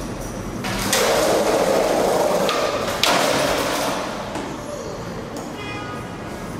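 Skateboard wheels rolling loudly over a hard floor, cut by one sharp impact about three seconds in, then a lower rumble.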